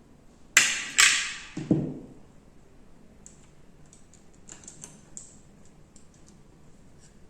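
Two sharp clacks about half a second apart, then a duller knock, followed by light ticks and taps: tools and small parts being handled on a workbench while an air rifle's rear sight is taken off.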